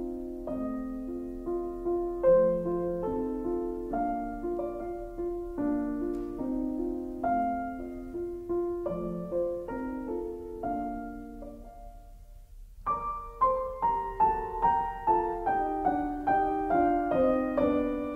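Solo piano music: a melody over repeated chords, which dies away about twelve seconds in and picks up again with a quicker run of higher notes.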